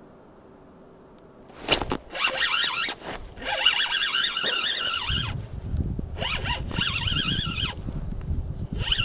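Spinning reel squealing in stop-start runs of a second or two while a hooked fish is played and reeled in, after a sharp click about two seconds in.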